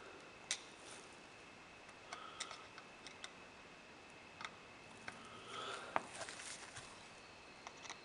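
A screwdriver working a grip-frame screw out of a Colt Open Top revolver: faint, scattered small metallic clicks and handling taps, the sharpest click about six seconds in.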